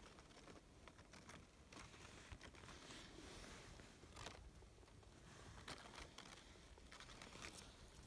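Near silence with faint, scattered light clicks and rustles.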